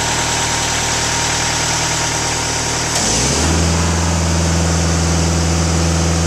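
Cherry picker's engine running steadily. About three seconds in, its note drops lower and grows heavier, then holds, as it works the hydraulics to move the boom and basket.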